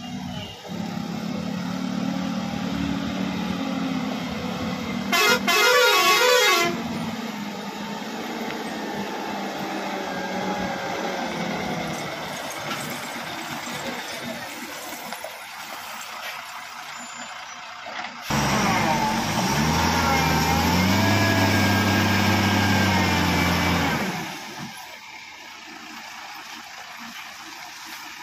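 A Tata dump truck's diesel engine runs steadily as the truck creeps around the bend. A warbling, tune-like truck horn sounds once about five seconds in. From about 18 seconds the engine grows markedly louder for around six seconds, with a wavering higher tone over it, then drops back.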